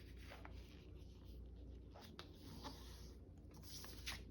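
Faint paper handling: soft rustles and a few light taps and scratches as papers are folded and scored.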